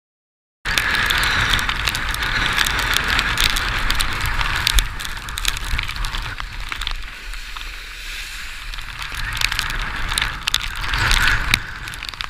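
Wind rumble and water spray crackling against a body-mounted action camera while windsurfing through breaking surf. It starts abruptly about half a second in, eases a little midway and builds again near the end.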